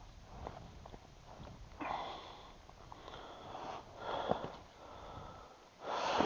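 A man breathing hard and sniffing: four noisy breaths or sniffs about a second apart, the loudest near the end. Faint small clicks in the first second and a half.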